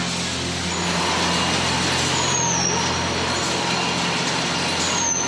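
Steady industrial noise of slaughterhouse machinery with a constant low hum. Two short, high, falling metallic squeals come about two seconds in and again near the end.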